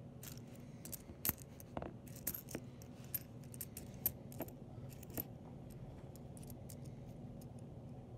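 Pennies clicking against one another as fingers slide them off a stack and spread them across a mat. There is a quick run of light clicks for about the first five seconds, then only a few, over a low steady hum.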